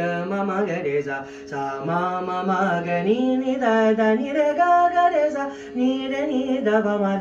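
Male vocalist singing an Indian classical melody in drawn-out, ornamented notes that glide between pitches, over a steady drone.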